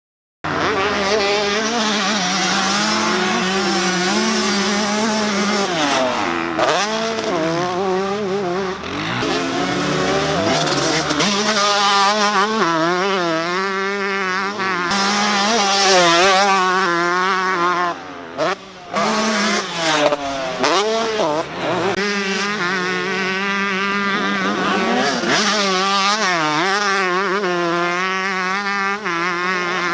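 Two-stroke motocross dirt bike engine screaming at high revs, its pitch climbing and falling again and again as the bike is worked through the gears and throttled on and off. There are several sudden brief cut-outs in the second half.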